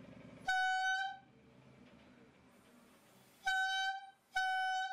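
Homemade bugle of a plastic bottle, a stretched balloon membrane and a straw, blown to sound a buzzy horn-like note as the balloon membrane vibrates. One blast about half a second in, then two shorter blasts of the same note near the end.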